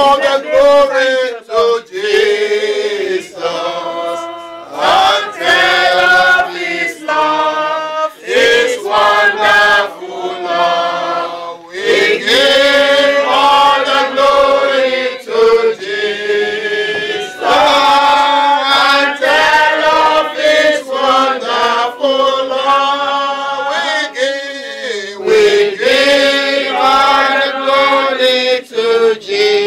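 A small group of men and women singing together unaccompanied, in phrases of held notes with short breaks between them.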